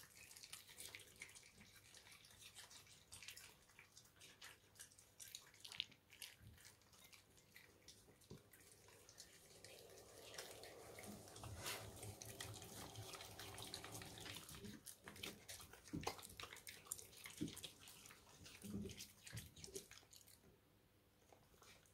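Maltese dog chewing fresh cilantro stems: many faint, quick wet clicks and crunches, with a faint hum for a few seconds in the middle. The chewing stops near the end.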